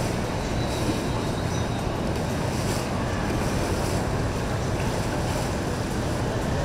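Steady sound of a motorboat running through the water, with rushing water and wind noise on the microphone.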